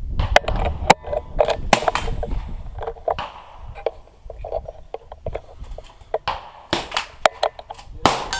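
Sharp clicks and knocks of a .22 target pistol being handled with a camera fixed to its scope, a few of them loud, with rumbling bumps over the first few seconds.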